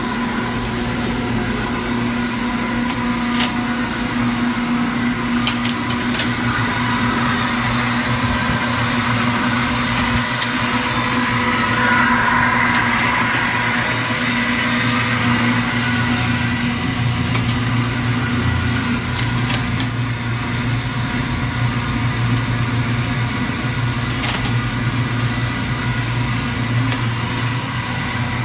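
500 kg ribbon mixer running empty, its geared electric drive motor giving a steady hum with a whine. A few light ticks sound over it.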